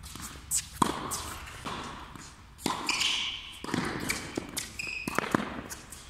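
Tennis rally on a hard court: sharp pops of the ball being struck by rackets and bouncing, with short high squeaks of shoe soles on the court surface.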